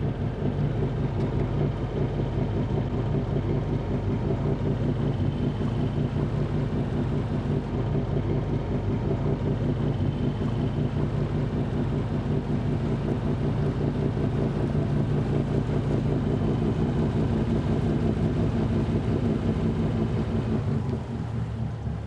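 Sailing yacht's auxiliary inboard diesel engine running steadily under way, with a fast low throb. It is running slightly rough.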